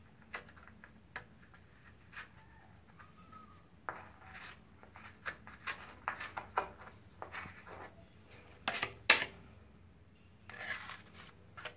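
A putty knife scraping and tapping as it presses and smooths gypsum joint compound into a cornice corner joint, in short, irregular strokes. The loudest are two sharp scrapes close together about nine seconds in.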